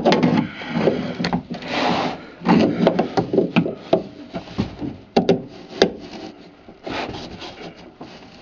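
Irregular knocks, clicks and scraping of hand tools being worked against a bolted fitting and the wood and fiberglass around it, in an attempt to unscrew it.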